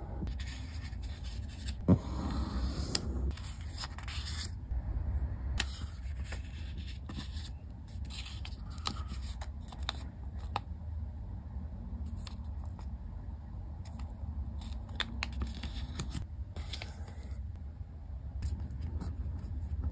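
A sheet of origami paper being folded by hand: rustling and scraping as it slides and bends, with many short crisp clicks as fingers press the creases flat, and one louder tap about two seconds in.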